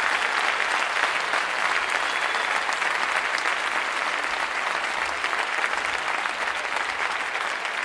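Large audience applauding steadily after a speech ends, a dense wash of many hands clapping that eases slightly near the end.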